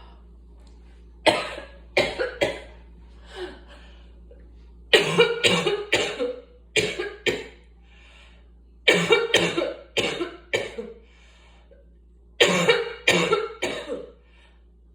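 A person coughing in several fits of three to five sharp coughs each, with pauses of a second or two between the fits. The coughing is from asthma.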